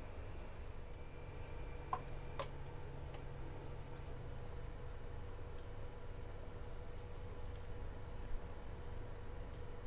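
3D-printed clock with a grasshopper escapement ticking faintly, one sharp click about every two seconds, over a faint steady hum.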